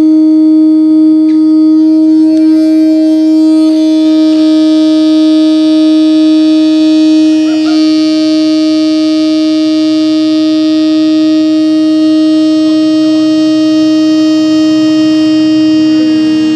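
Locomotive air horn blowing one long, loud, steady note on compressed air: a single pitch with strong overtones that swell brighter partway through, then cut off at the end.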